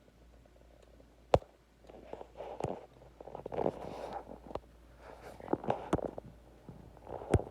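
Handling noise: irregular rustling and scraping, with a few sharp clicks, the loudest about a second and a half in.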